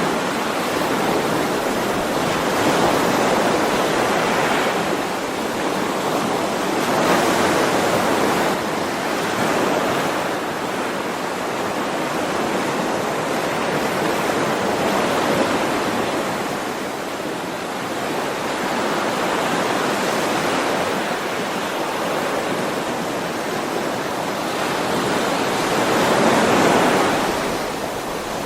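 Ocean waves on a shore: a continuous hiss of surf that swells and eases every few seconds, with a bigger wave breaking near the end.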